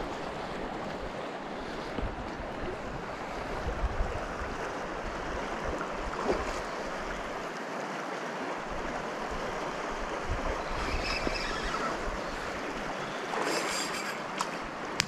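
Steady noise of river water flowing, with a few brief knocks.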